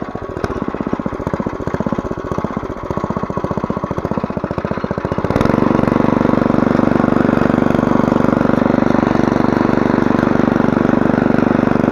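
Small petrol engine of a walk-behind tiller (motor hoe) running as its rotating tines hoe the soil between sugar beet rows. About five seconds in the sound turns louder and steadier.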